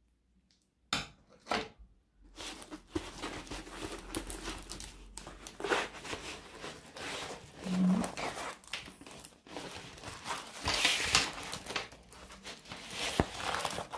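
Plastic packaging crinkling and rustling as a rolled diamond-painting canvas is unwrapped and unrolled, after two short scissor snips about a second in.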